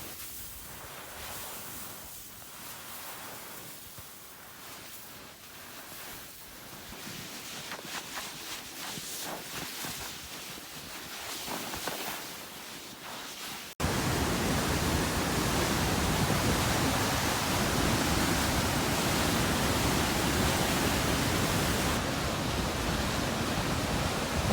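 Wind rushing over the microphone as a steady hiss, moderate at first, then much louder after a sudden cut about fourteen seconds in.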